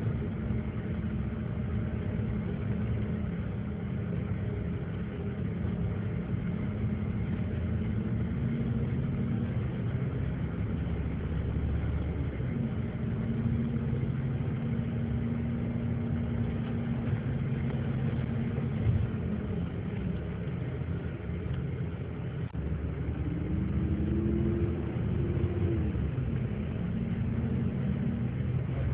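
Engine and road noise of a moving vehicle, heard from inside it. The engine note holds steady, eases off twice, then climbs and falls again near the end as the vehicle picks up speed.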